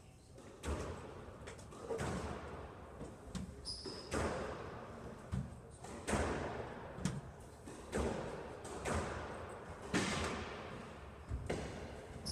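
Squash ball being struck by racquets and rebounding off the court walls during a rally: sharp cracks about once a second, each ringing in the echoing court, with a short high squeak twice.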